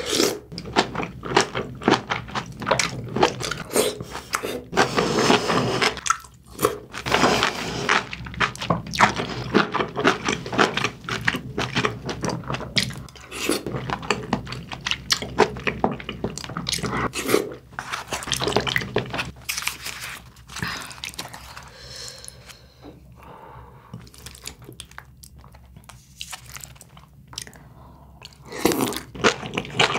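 Close-miked eating sounds of a person chewing braised aged kimchi with pork belly, with wet mouth clicks and bites in quick irregular succession. The sounds thin out for several seconds past the twenty-second mark, then pick up again near the end with a fresh bite.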